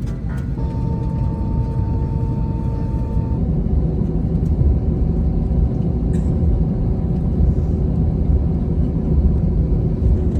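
Steady low rumble of airliner cabin noise inside an Airbus A321, with a high steady tone for about three seconds near the start and a lower steady hum after it.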